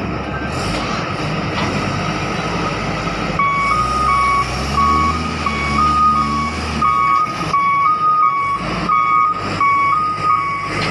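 Kalmar container reach stacker: its diesel engine runs under the cab while the machine moves. About three seconds in, its two-tone reverse alarm starts, alternating steadily between a higher and a lower beep.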